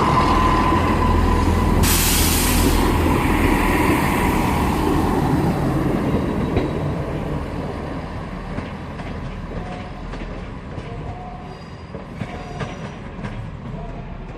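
Class 158 diesel multiple unit pulling away, its engine and wheels rumbling and growing steadily quieter as it leaves. There is a short burst of hiss about two seconds in, and faint wheel squeal near the end.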